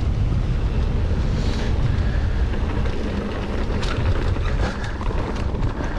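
Wind noise on the microphone of a camera on a mountain bike riding a rough dirt track, a steady low rumble with a few scattered clicks and rattles about four to five seconds in.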